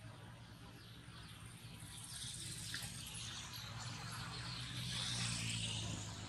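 Forest insects, probably cicadas or crickets, shrilling as a dense high hiss that swells from about two seconds in and eases near the end, over a low steady hum.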